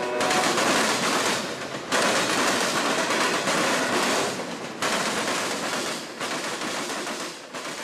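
Freight train cars rolling past: steel wheels running on the rails with a dense, rapid clatter, growing louder suddenly about two seconds and again about five seconds in as the next cars come by.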